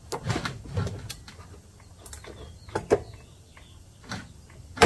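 Irregular metal clinks, knocks and faint squeaks as a steel deck lift rod is worked back and forth in its bracket on a John Deere LT160 mower deck, with one sharp clank near the end.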